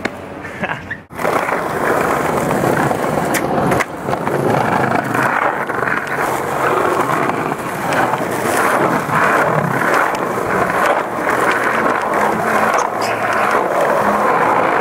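Skateboard wheels rolling steadily over smooth stone paving, a rough continuous rumble with a few light clicks. It starts after a brief break about a second in.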